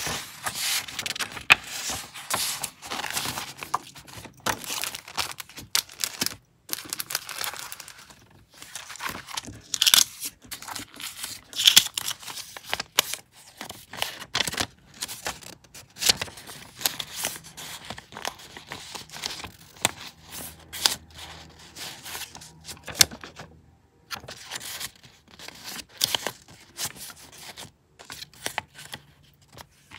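Paper rustling and crinkling as hands flip and shuffle through a stack of small paper pieces and old printed paper cuttings. The rustles come in quick, irregular bursts, with a few louder flicks of paper.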